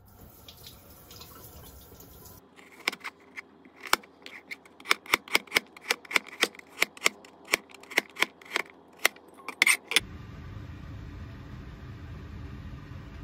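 Chinese cleaver chopping a carrot on a cutting board: a steady run of sharp knocks, about three strokes a second, starting a couple of seconds in. About ten seconds in, the chopping stops and a steady low rumble takes over.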